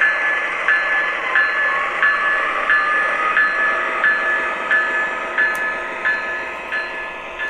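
MTH O scale ES44AC model diesel locomotive running past, its sound system ringing the locomotive bell about one and a half strokes a second over the steady noise of wheels rolling on the track, slowly fading as the train moves on.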